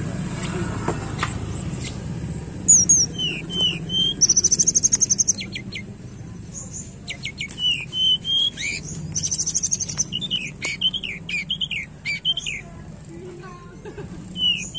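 A tledekan gunung singing: a string of short, slurred whistles broken by two fast, high, buzzy trills, each about a second long.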